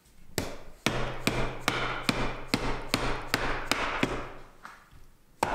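Mallet striking an old pine door frame, about a dozen sharp blows at roughly two to three a second that slow and stop near the end. A faint steady low hum runs underneath.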